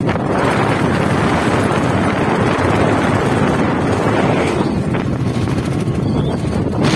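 Steady, loud running noise of an auto-rickshaw on the move, heard from inside its open passenger compartment, with wind buffeting the microphone.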